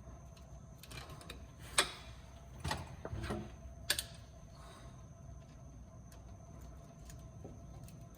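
A few sharp clicks and knocks of hand tools on metal during transmission removal, bunched between about one and four seconds in.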